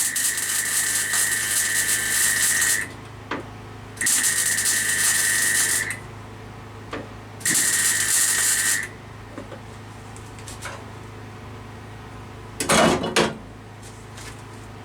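Welding on car body steel in three short bursts of a couple of seconds each, each stopping abruptly, laying the final welds on the Rover P6 base unit. A brief metallic clatter follows near the end.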